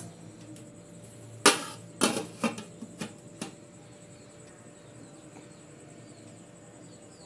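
Aluminium steamer pot lid being set in place: about five sharp metallic clacks over two seconds, the first the loudest, then a faint steady hiss.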